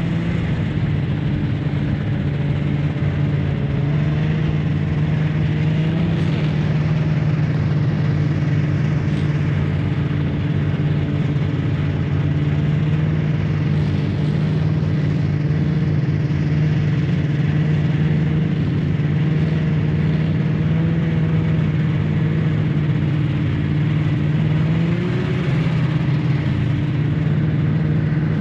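Snowmobile engine running steadily under way, its pitch wavering only slightly as it carries riders along a snowy trail.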